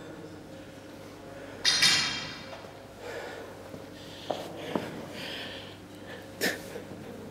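A man breathing hard after exertion, with one loud, forceful exhale about two seconds in, then a few light knocks.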